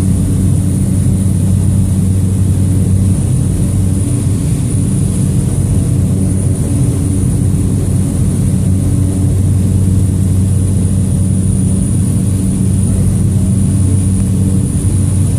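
Steady cabin drone of a small turboprop commuter plane in flight, heard from inside the cabin. A low propeller hum carries a thin, high turbine whine above it.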